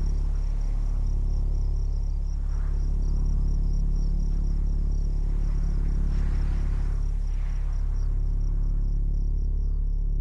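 Steady, deep sub-bass drone of a slow electronic piece played through subwoofers, with crickets chirping in a rapid, regular high pulse over it.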